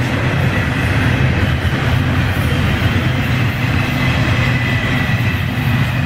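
Double-stack intermodal freight cars rolling past close by, a steady loud rumble of steel wheels on rail, with a faint high wheel squeal coming and going.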